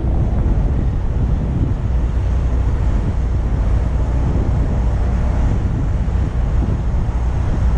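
Wind blowing across the microphone, a steady low rush with no clear tones.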